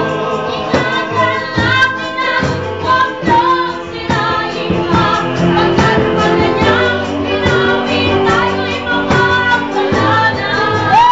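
Restaurant waitress and cooks singing together, a woman's voice prominent, over music with a steady beat.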